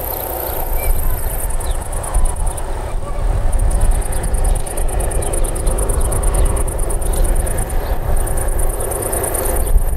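Diesel engine of the SM30 shunting locomotive running at a distance under a steady low rumble as it hauls a short train. Field insects chirp in fast, even pulses high above it.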